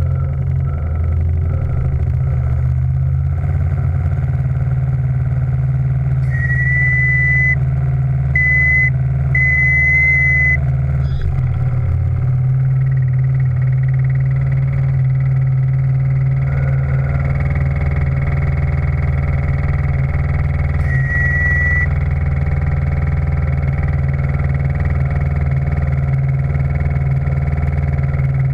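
Steam launch's machinery running with a steady low hum, broken by a high whistle sounding three short blasts and then one more later on, typical of a steam whistle.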